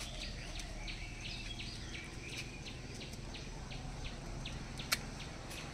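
Small birds chirping repeatedly in short calls over low, steady outdoor background noise, with a single sharp click about five seconds in.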